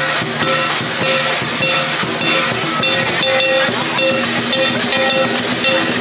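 Lion dance percussion, drum, gong and cymbals, playing fast and loud, with a dense steady hiss over it.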